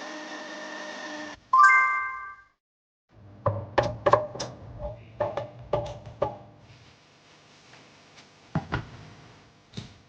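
A steady hum stops about a second in and is followed by a single bright electronic chime. After a short silence comes a run of about eight sharp knocks and clicks, then a few more faint clicks near the end.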